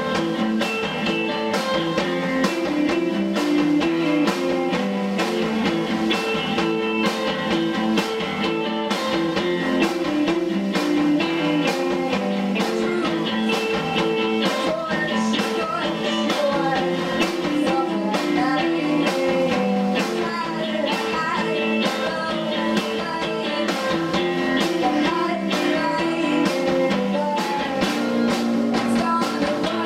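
Indie rock band playing live: distorted electric guitars over bass guitar and a drum kit keeping a steady beat.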